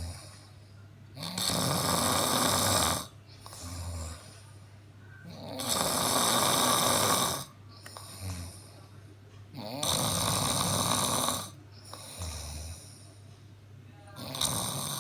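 A man snoring in his sleep, one long snore about every four seconds, each lasting about two seconds, with a quieter breath out between them. Four snores, the last starting near the end.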